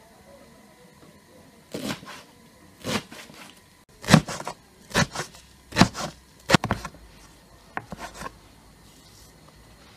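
Kitchen knife chopping fresh green herbs on a wooden cutting board: about a dozen sharp, irregular knocks of the blade on the board, coming quicker in the middle.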